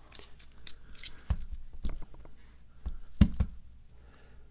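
Small metal clicks and clinks of a hex key and screwdriver handled against a Master Lock 930 padlock as it is taken apart, with a sharper knock a little over a second in and a quick double knock about three seconds in.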